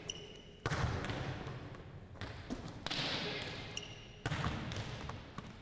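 Volleyball hits and bounces ringing in a large gym: sudden slaps about half a second, three and four seconds in, each trailing off in the hall's long echo, the one near four seconds in being the player's spike. Brief sneaker squeaks on the hardwood floor come in between.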